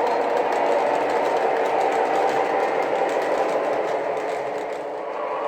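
Lionel TMCC C420 O-gauge model diesel locomotive running along its track: a steady mechanical whirr of motors and wheels, easing off slightly near the end.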